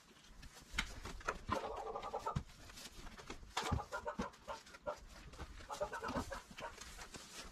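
Hens clucking in three short bouts, with scattered rustles and knocks from weeds being pulled by hand.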